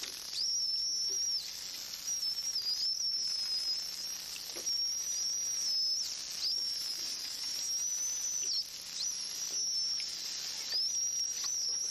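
Bottlenose dolphins whistling: about seven long, high, fairly level whistles follow one another, each one to two seconds long and bending up or down at its ends.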